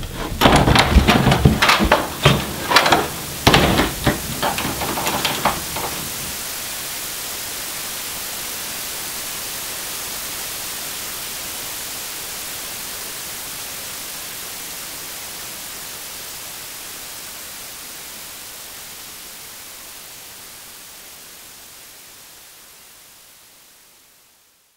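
Static hiss, an even rushing noise with no tone, fading slowly away over about eighteen seconds until it is gone. For the first six seconds it is broken by irregular loud bursts of noise.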